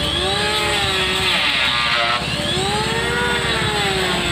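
Handheld electric power tool, such as an angle grinder or sander, working the wooden roof ribs of a truck cabin frame. Its motor pitch rises and falls in slow swells as it is pressed into the wood and eased off.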